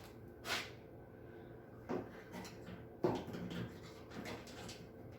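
Scattered handling knocks and clunks, the loudest about three seconds in, with a short rustle about half a second in.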